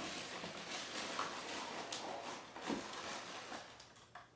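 Rustling and crinkling of garbage being handled, with small scattered clicks.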